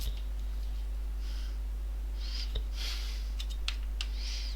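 Soft breathing close to the microphone, a breath every second or so, over a steady low electrical hum. A few small sharp clicks come a little past three seconds in.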